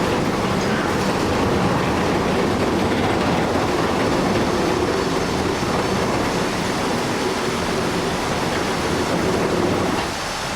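Heavy machinery running: a steady, loud mix of engine rumble and mechanical clatter.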